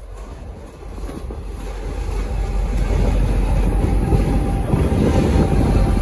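V/Line N class diesel-electric locomotive, with an EMD 12-645 two-stroke V12, rumbling past at low speed. Its engine and wheel noise grow louder over the first two or three seconds as it draws alongside, then hold steady.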